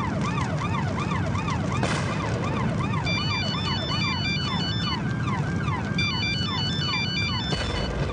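Emergency-vehicle siren wailing rapidly, rising and falling about two to three times a second, over a low steady rumble of fire. From about three seconds in, a mobile phone rings in short electronic trills, in two bursts.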